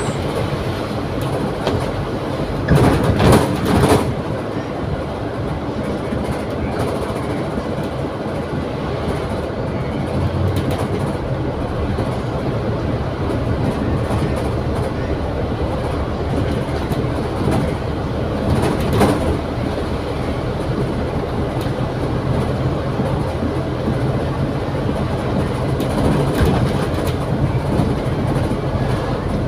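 Double-decker bus running along the road, heard from the upper deck: a steady engine drone and road noise, with knocks and rattles from the bodywork. The loudest clatter comes about three seconds in.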